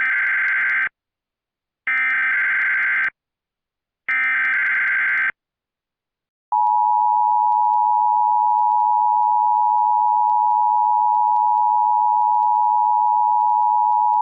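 Emergency Alert System tones: three short bursts of SAME header data, each about a second long, near the start and at about two and four seconds in. Then, from about six and a half seconds in, the steady two-tone EAS attention signal (853 and 960 Hz), which announces that an emergency alert message follows.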